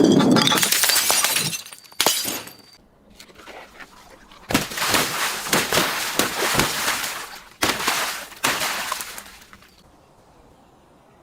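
Glass breaking and crunching in several bursts: a loud one at the start, a short one about two seconds in, then a long stretch of crunching and shattering from about four and a half to nine and a half seconds, after which it goes quiet.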